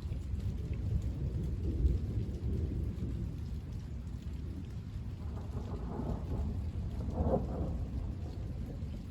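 Thunder rumbling low and continuously, with a louder peal swelling about five seconds in and peaking near seven seconds, over steady rain.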